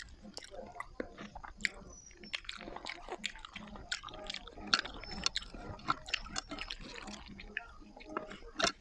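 Close-up eating sounds: soft wet chewing with many small irregular clicks and smacks, and one sharper click near the end.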